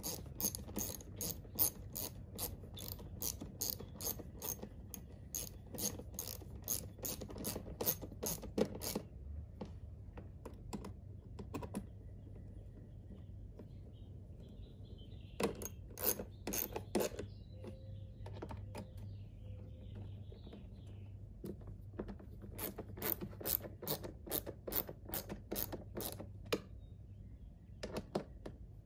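Hand ratchet clicking in runs of about three to four clicks a second, with pauses between runs, as screws are driven back into the plastic windshield cowl panel.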